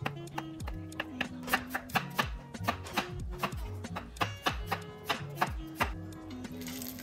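A knife chopping zucchini and then onion on a wooden cutting board, in quick regular strokes over soft background music. Near the end it gives way to the hiss of a breaded cutlet starting to fry in hot oil in a cast-iron skillet.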